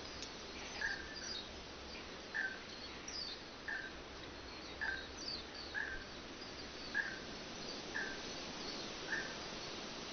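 A bird repeating a short call about once a second, with fainter higher chirps from other birds, over a steady background hiss.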